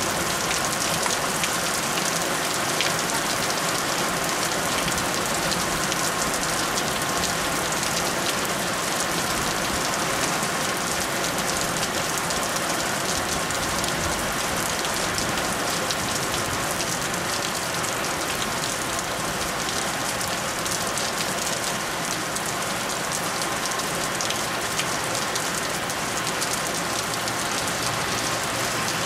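Heavy downpour from a storm cell: rain falling steadily and evenly, without let-up.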